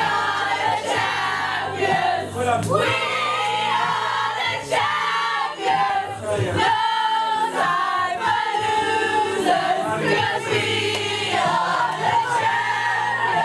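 A group of people singing along together to a song played through a speaker, with a steady bass line underneath.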